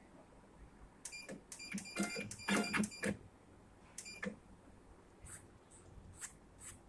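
Automatic wire cutting and stripping machine's motors and blade mechanism working through a cycle: a quick, irregular run of short whirs and clicks, mostly between one and three seconds in, with one more about four seconds in.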